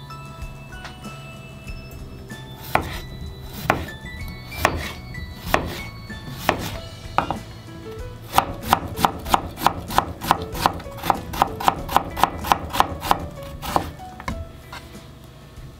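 Chef's knife cutting a cucumber on a plastic cutting board: a few separate cuts about a second apart, then a quick, even run of about five chops a second for about five seconds as the stacked slices are cut into thin strips.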